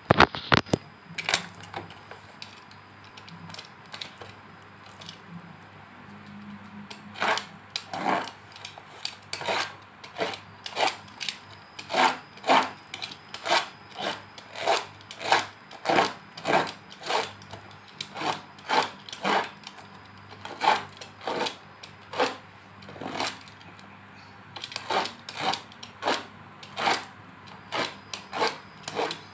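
A long parcel wrapped in brown paper and packing tape being worked open by hand, in short rhythmic scraping strokes about two a second. A few sharp knocks come at the very start.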